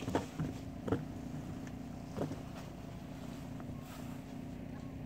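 Steady low hum of a boat motor running, with a few light knocks from fishing tackle being handled in the boat during the first two seconds or so.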